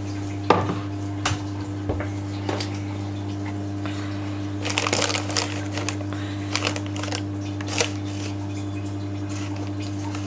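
Kitchen handling sounds: a spoon clinking and scraping against containers as sugar is spooned into a glass bowl of curd, with a longer scratchy rustle about five seconds in. A steady low hum runs underneath.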